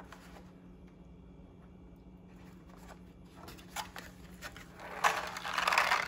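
A paper-plate BB target being handled by hand: a few light clicks, then a loud crinkling rustle of paper and cardboard about five seconds in.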